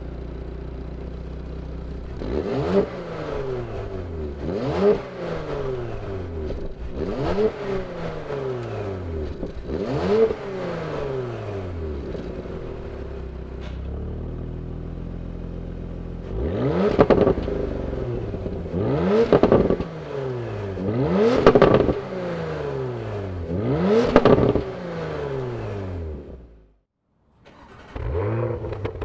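Porsche Macan GTS twin-turbo V6 idling and blipped through its factory Porsche exhaust: four rising-and-falling revs in normal mode, then four louder revs with the exhaust in sport mode. The sound cuts out briefly near the end, then the engine is heard idling again.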